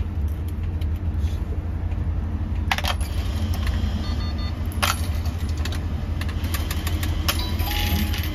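Bus engine running with a steady low rumble, overlaid by sharp metallic clinks and rattles about three, five and seven seconds in, and a few faint high beeps near the middle.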